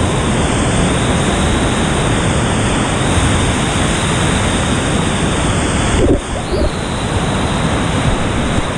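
Steady, loud rushing of a muddy whitewater river in flood, its rapids swollen by heavy rain, heard close by the camera. Briefly interrupted about six seconds in.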